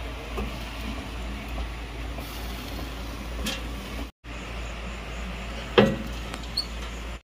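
Steady low rumble with a faint even hiss, broken by a brief dropout just after four seconds. A sharp knock comes near six seconds in.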